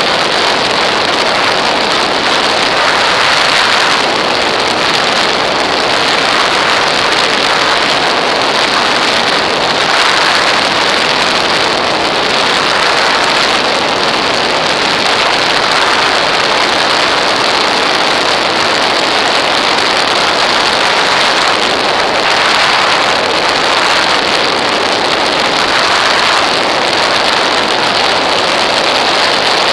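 Steady, loud rush of airflow over a wing-mounted camera on a light aircraft in flight, an even noise with no distinct tones or changes.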